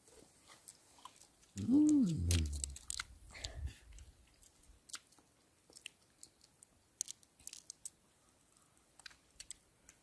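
Crab being eaten: irregular small cracks and clicks of crab shell and chewing crunches. About two seconds in, a short hummed vocal sound rises and falls.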